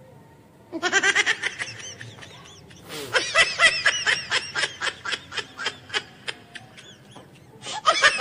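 High-pitched laughter in quick rhythmic bursts, about four a second, breaking off briefly about two seconds in and then running on.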